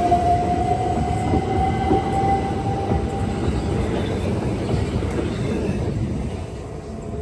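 Southern Class 377 Electrostar electric train running out past the platform: a heavy wheel-and-track rumble with a whine that rises slightly in pitch as the train gathers speed. The whine fades about halfway through, and the rumble dies away as the last coach passes.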